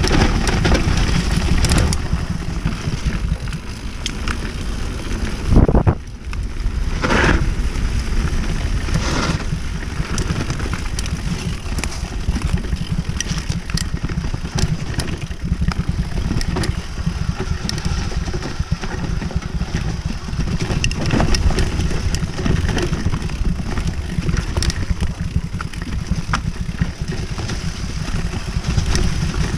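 Mountain bike riding fast down a dirt forest trail: steady rush of wind on the microphone and tyre noise, with frequent knocks and rattles as the bike goes over roots and bumps. One loud thump about six seconds in.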